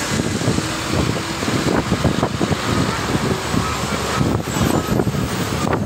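Wind rush and road noise of a moving bus, heard at an open side window, with tyres on a wet highway and gusts of wind buffeting the microphone.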